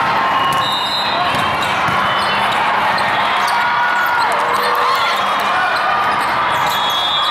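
Busy volleyball gym: a steady hubbub of many voices, with volleyballs being hit and bouncing on the court, and short high squeaks of shoes on the floor.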